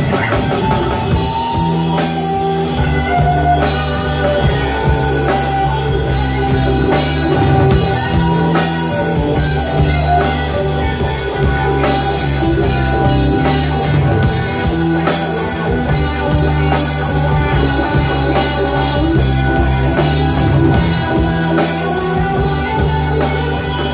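Live rock band playing at full volume: electric guitar, bass guitar, drum kit and keyboard.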